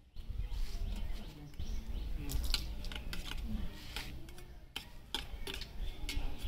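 Steady low rumbling noise on the microphone, starting abruptly just after the start, with a series of sharp clicks of spoons against steel plates and bowls and faint murmured voices.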